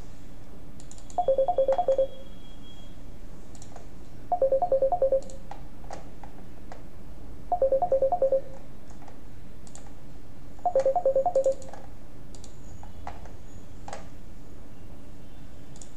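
Incoming WhatsApp voice-call ringtone from a computer: short bursts of quick beeping pulses, four of them about three seconds apart, with the last ending a few seconds before the end. A few soft clicks are heard in between.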